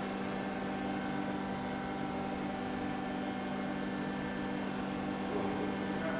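Steady mechanical hum with several constant low tones over a light hiss.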